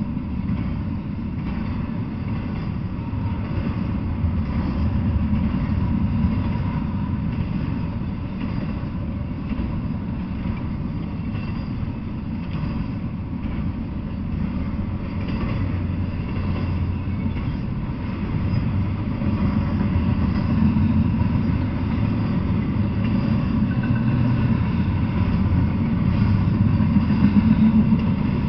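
Double-stack intermodal freight train rolling past, a steady low rumble of well-car wheels on the rails that swells slightly in the last few seconds.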